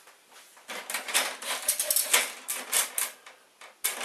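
Quick, irregular clicking and scraping of a screwdriver working against an inkjet printer's plastic case, starting about a second in and stopping shortly before the end.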